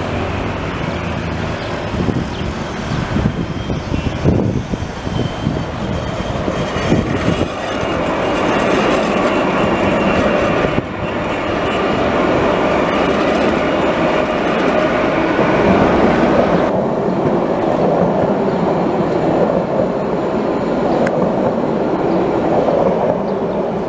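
Alstom Citadis 302 low-floor trams running past on their rails: a steady rolling rumble of steel wheels on track that builds about eight seconds in, with a faint high whine above it.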